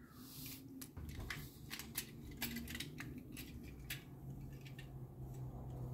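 Small die-cast metal toy cars being handled and knocked against each other: a string of light, sharp clicks and clinks, with a low steady hum underneath from about a second in.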